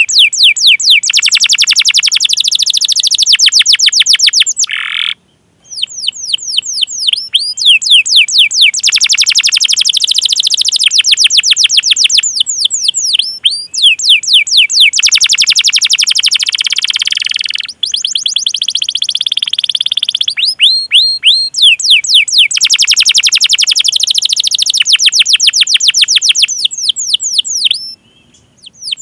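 Domestic canary singing long rolling trills of fast, evenly repeated high notes that slide downward, the 'cuit cuit' rolls ('ngerol') of a strong singer. The song breaks off briefly three times.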